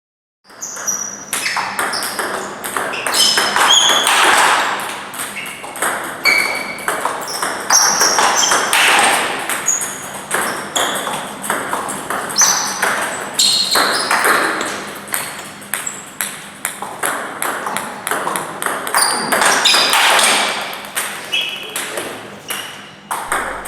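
Table tennis rally: the ball clicks off the rackets and bounces with short, ringing pings on the table, stroke after stroke, in a quick irregular rhythm.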